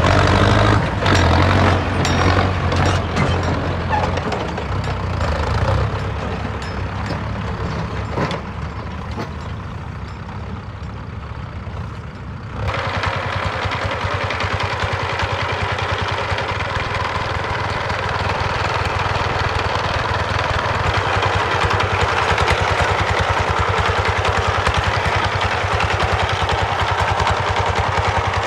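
Heavy diesel engine running steadily with a low rumble. About halfway through it switches abruptly to a louder, busier engine sound.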